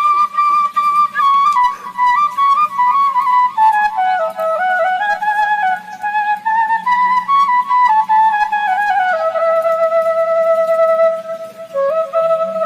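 Background music: a solo flute melody that steps slowly down in pitch, holds a low note, then climbs again near the end.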